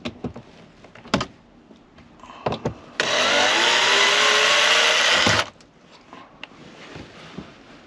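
Black+Decker cordless drill driving out a screw from the old window shade's mounting, running for about two and a half seconds with a steady whine whose pitch shifts as it works, then stopping abruptly. A few light knocks and clicks come before it.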